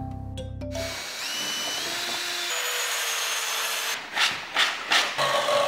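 A power tool's motor running with a high whine that steps up in pitch, then a few quick rubbing strokes of sandpaper worked by hand on wood.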